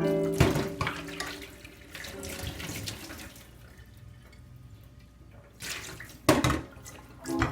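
Tap water running and splashing in a sink in uneven spells, with a couple of sharp knocks.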